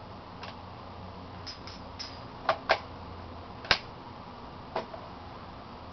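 Handle of a Kirby Model 512 upright vacuum cleaner being fitted and latched onto its body: a series of short, sharp clicks and clacks, two close together about two and a half seconds in and the loudest about three and a half seconds in.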